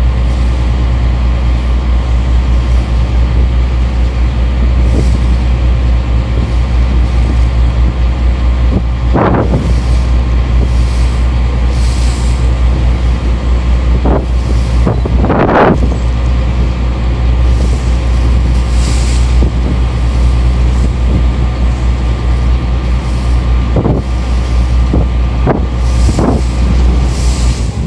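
Strong wind buffeting a phone's microphone, a loud steady rumble over the drone of the support vessel YF2125's engine, with a few louder rushes, the strongest about fifteen seconds in.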